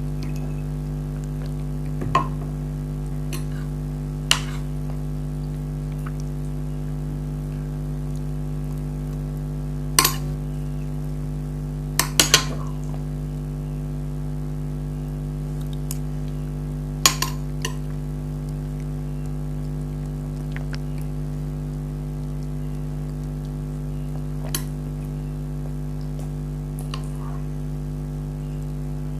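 A spoon clinking against a dish now and then, about ten short sharp clinks spaced seconds apart, two of them in quick pairs, over a steady low hum.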